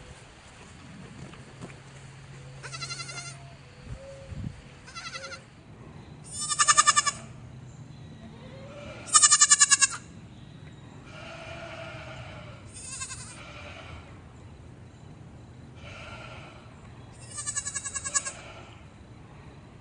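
Goats bleating again and again, about eight quavering calls of a second or so each, some faint and some loud, the loudest about nine seconds in.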